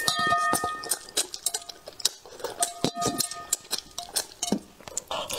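Close-miked eating of braised crucian carp: a run of sharp wet mouth clicks and smacks while chewing the saucy fish, with light taps of wooden chopsticks.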